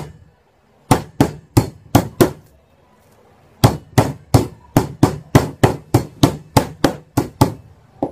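Metal meat mallet pounding pork chops through plastic wrap on a chopping board, flattening them for tonkatsu. Five quick blows, a pause of about a second, then a steady run of over a dozen more at roughly three a second.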